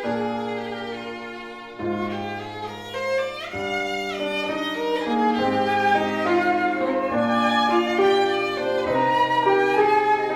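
Instrumental music from a small ensemble, led by a bowed violin playing a melody of held notes over lower sustained notes, growing louder after about two seconds.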